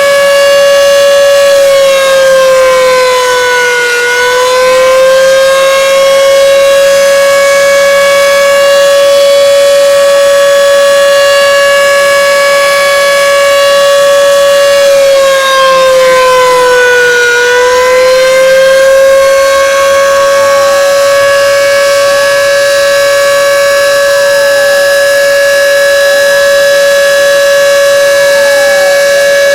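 The Plengkung Gading siren (gauk) sounds a very loud, long, steady wail, its pitch sagging slightly and recovering twice. It is sounded to mark the moment of the Indonesian Independence proclamation.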